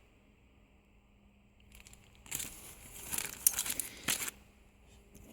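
Packaging of a stamp set crinkling as it is handled. It starts about two seconds in and has a few sharper crackles.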